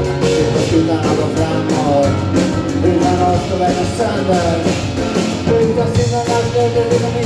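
Live music from a grand piano and a plucked upright double bass playing a song together.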